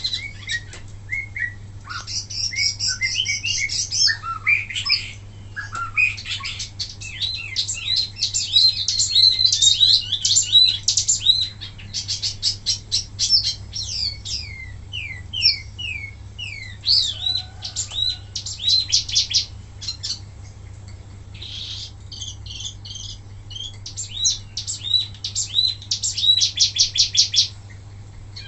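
Wambi mini songbird singing a rapid string of chirps and fast repeated trills, the 'tembakan' bursts used for tutoring other cage birds, with brief pauses between runs. A steady low hum runs underneath.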